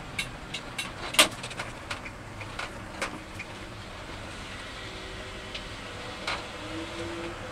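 Inside the cab of a 1979 Ford F250 pickup at low speed: the engine runs with a low rumble. Scattered sharp clicks and rattles come from the cab, the loudest about a second in.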